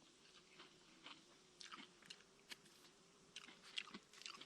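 A person chewing food close to the microphone: faint, irregular soft clicks and smacks of the mouth.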